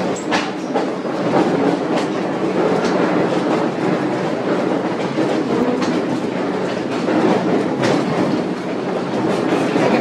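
Narrow-gauge passenger car running along the track, heard from inside the car: a steady rumble with occasional sharp clicks.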